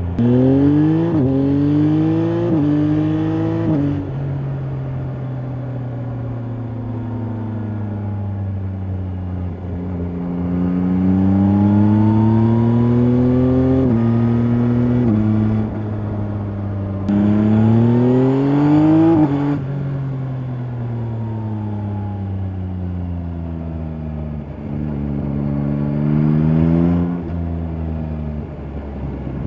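2024 Yamaha Tracer 9 GT's 890 cc inline-three engine on its stock exhaust, pulling hard through three quick upshifts in the first few seconds, the pitch dropping sharply at each quickshifter shift. It then settles and falls, and climbs twice more in strong pulls, about halfway through and near the end, each ending in a sudden drop.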